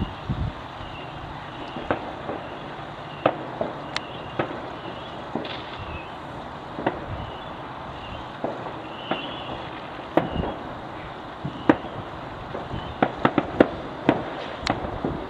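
Fireworks going off: scattered sharp bangs and pops at irregular intervals over a steady background hiss, coming thick and fast in the last few seconds.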